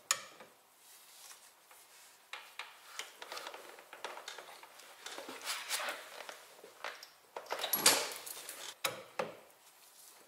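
Metal hand tools clinking and scraping in irregular bursts as a wrench and socket turn bolts a further 90 degrees after torquing. A sharper metallic clank comes right at the start and another about eight seconds in.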